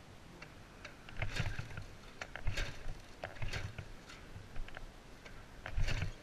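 Ural Tourist motorcycle's flat-twin engine, with a newly fitted electronic ignition, being turned over without catching: a string of irregular low thuds and clicks about a second apart.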